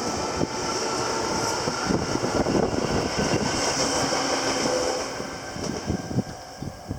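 Train running through a railway level crossing, a steady rumbling roar that fades away about five seconds in. Wind buffets the microphone throughout.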